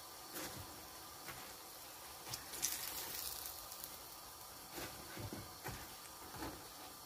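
Pişi dough frying in shallow hot oil in a pan: a light steady sizzle that flares up for about a second, two and a half seconds in. A fork knocks against the pan several times as the fried pieces are lifted out.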